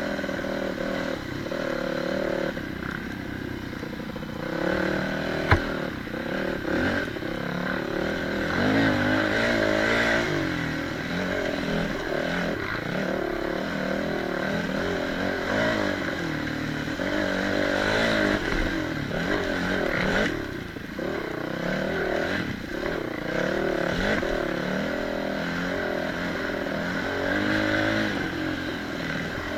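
Off-road motorcycle engine revving up and down with the throttle as the bike rides a rough dirt trail. A single sharp knock about five and a half seconds in.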